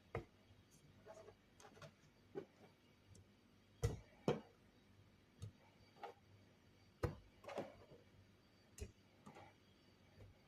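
Scattered light knocks and clicks of ingredients and containers being handled and put into a blender jar, with a close pair of louder knocks about four seconds in and another about seven seconds in.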